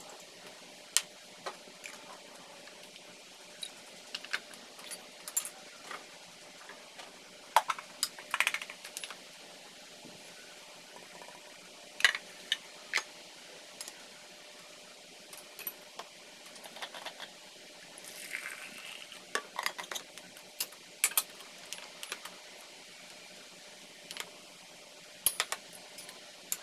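Scattered sharp clinks and taps of metal coffee-brewing gear being handled and set down, including a stainless steel Vietnamese phin drip filter and its lid on a cup. Some strikes ring briefly.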